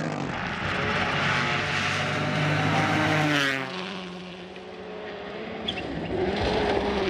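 Rally car engine held at high revs with a rushing hiss, dropping away suddenly about three and a half seconds in; a second rally car's engine comes up near the end.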